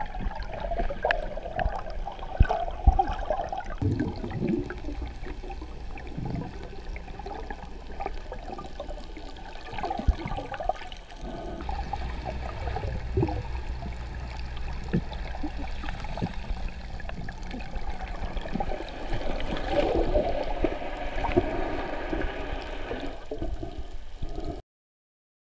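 Muffled underwater water noise picked up by a GoPro in its waterproof housing: gurgling and sloshing with scattered clicks and knocks. The sound cuts off suddenly near the end.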